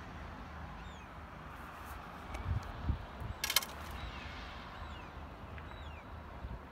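Outdoor ambience: a steady low rumble of wind on the microphone, with a few dull knocks and a short rattle about halfway through, and faint short high falling chirps now and then.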